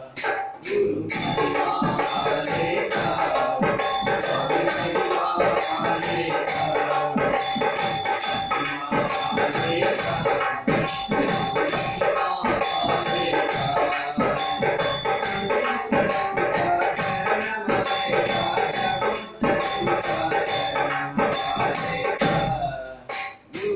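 Male voices singing a devotional bhajan, accompanied by a two-headed barrel drum and a tambourine in a dense, continuous rhythm, with a brief break near the end.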